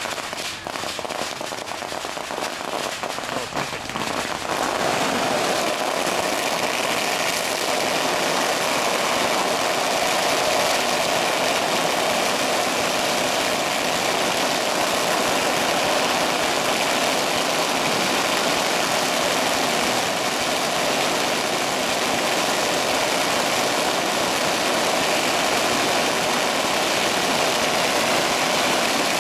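Long strings of firecrackers going off at once. They start as a dense, rapid crackle of bangs and after about four seconds merge into one continuous, unbroken rattle that keeps going.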